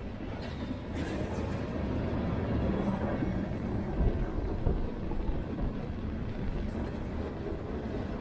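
Empty open hopper cars of a freight train rolling past: a steady rumble of steel wheels on rail, with a few sharper clanks.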